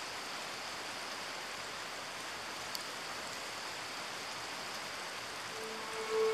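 Shallow mountain river rushing over stones, a steady, even rush of water. Music fades in near the end.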